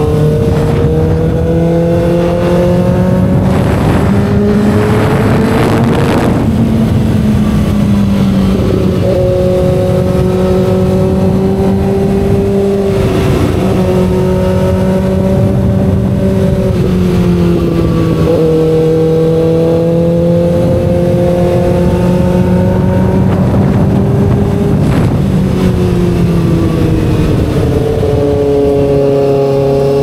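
Kawasaki ZX-6R inline-four sport-bike engine running under way. Its pitch climbs slowly and steps down several times, about 6, 9, 17 and 26 seconds in.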